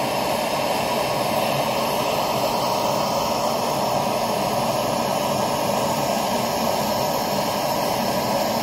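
Handheld gas blowtorch burning steadily, a constant rushing noise from its flame, played into a steel pot to melt the white metal off an engine cap.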